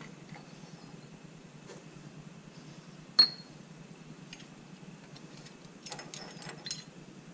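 Small metal clicks and scrapes from a pick working the locking nut and washer loose inside a Ford F150's front wheel hub, with one sharp ringing metal click about three seconds in and a cluster of lighter clicks near the end.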